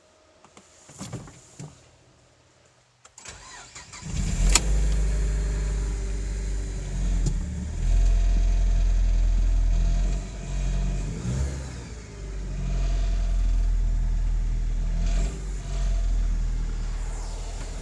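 Alfa Romeo Brera 2.2 JTS four-cylinder petrol engine cold-started: a few small clicks, a brief crank, and it catches about four seconds in, then runs at a raised cold idle with its level rising and falling. This is the start-up noise that, according to the owner, occurs only in cold weather at around 1100–1200 rpm.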